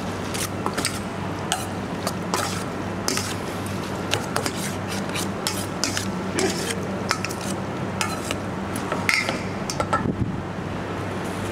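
Metal spoon stirring and tossing glass noodle salad with minced pork in a stainless steel bowl: irregular clinks and scrapes of spoon on bowl, over a steady low hum.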